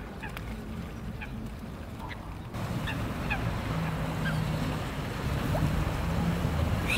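Water birds giving short, scattered calls over a steady low rumble and hum of harbour noise. The rumble steps up in level about two and a half seconds in.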